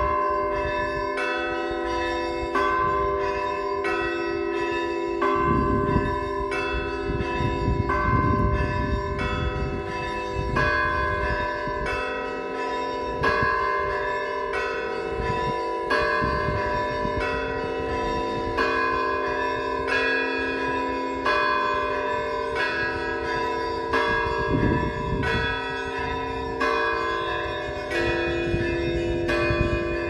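Russian Orthodox monastery bell peal (zvon): several bells of different pitches struck again and again in a repeating pattern, the small bells chiming over the longer ringing of the larger ones.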